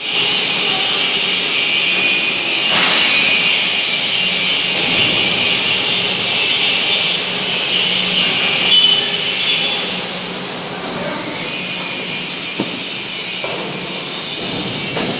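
Loud, steady hissing machinery noise in a metal-cutting workshop, with a faint low hum underneath; it dips briefly about ten seconds in.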